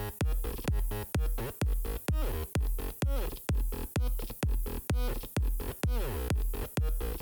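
Electronic dance music with a steady four-on-the-floor beat, about two beats a second, over a pulsing bass and gliding synth lines.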